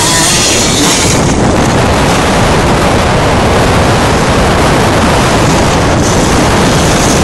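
Steady, loud rushing of wind buffeting the microphone, with motocross bike engine noise mixed in underneath.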